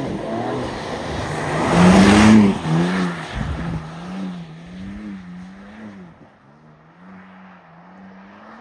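BMW M3's twin-turbo straight-six revving up and down as the car slides past in a drift, loudest about two seconds in with a rush of tyre noise, then fading as the car drives away, its note still rising and falling.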